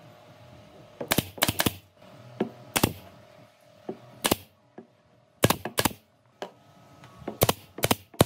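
About a dozen sharp knocks and clicks, irregularly spaced, some single and some in quick runs of two or three, typical of hand work on wood in a workshop. A faint steady hum sits underneath.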